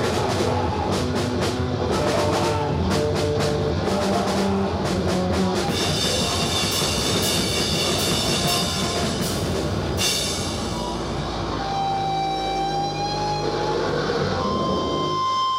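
Noisecore band playing: fast, dense drumming under a wall of distorted guitar noise. About ten seconds in the drums stop, leaving steady high whining tones of guitar amplifier feedback, with one strong tone coming in near the end.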